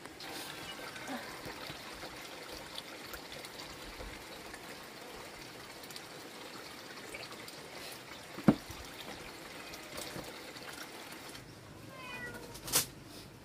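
Water trickling and sloshing as a wet towel is wrung out over a metal basin of water. A single sharp knock comes about eight and a half seconds in, the loudest sound here. Near the end come a few short falling animal calls and another sharp knock.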